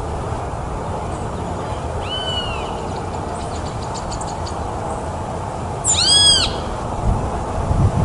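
Mockingbird giving two arched calls that rise and fall in pitch, a fainter one about two seconds in and a louder one about six seconds in. A steady low rumble of background noise runs underneath.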